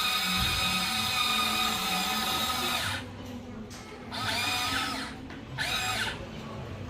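Small electric motors of a Huina 1594 RC excavator whining steadily, then stopping about three seconds in. Two short whirs follow, each rising and falling in pitch as a motor spins up and back down.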